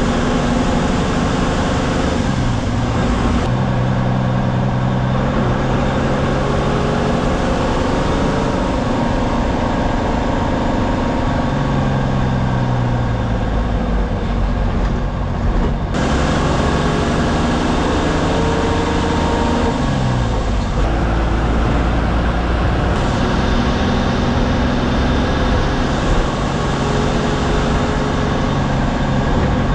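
MSRTC bus's diesel engine running on the road, heard from inside the cab. The engine note rises and falls with speed and gear changes, dropping in pitch twice.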